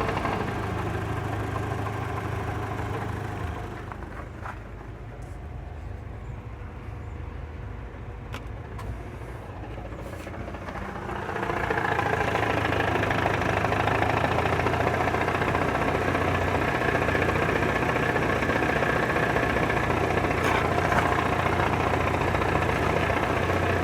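Haval H5 engine idling with the clutch released, the gearbox turning in neutral, as the owner demonstrates a knock in the gearbox that comes with the air conditioning on. About eleven seconds in the sound gets noticeably louder and fuller and stays that way.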